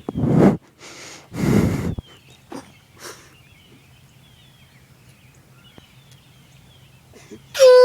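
An air horn blasts once, short and loud, at the very end. Earlier there are two sharp breathy bursts, and birds chirp faintly throughout.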